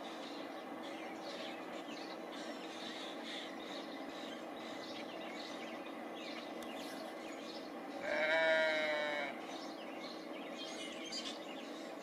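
Outdoor ambience of small birds chirping over a steady low hum. About eight seconds in, one loud, drawn-out call with a clear, slightly wavering pitch lasts just over a second.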